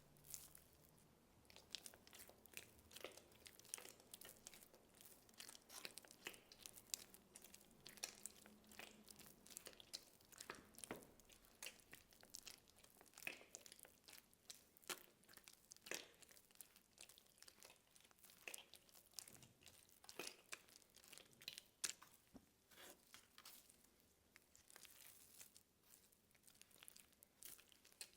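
Packaging being unwrapped close up: faint, irregular crinkling, crackling and tearing throughout.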